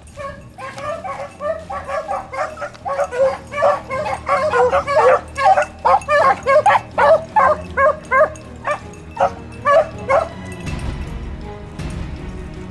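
A pack of beagles baying on a rabbit's trail: many short, quick calls from several hounds overlapping, which stop about ten seconds in, leaving a low rushing noise.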